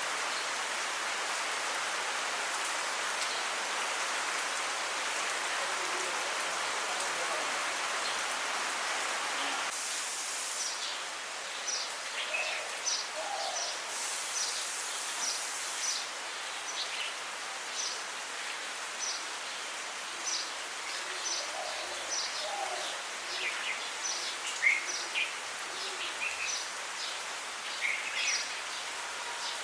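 Steady monsoon rain hissing. From about ten seconds in, birds give short, high chirps over it, over and over.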